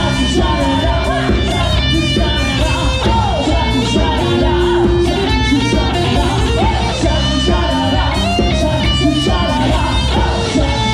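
Live band playing amplified pop-rock: a woman singing over electric guitar and a drum kit.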